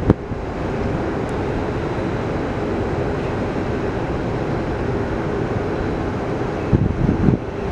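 Steady hiss of police radio scanner static on an open channel between transmissions, with a few short crackling bursts about seven seconds in.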